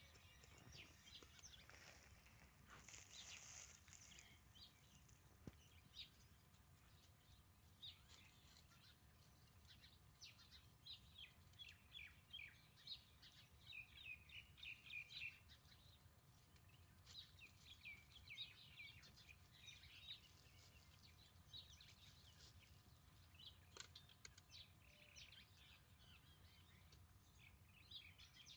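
Faint, scattered bird chirps over a quiet outdoor background, thickest in the middle, with a brief hiss of noise about three seconds in.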